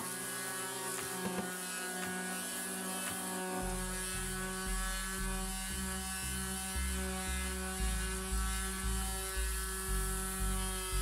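Electric orbital sheet sander with 80-grit paper running against the wooden edge of a table, a steady unchanging motor tone. Background music with a regular beat comes in about four seconds in and sits under it.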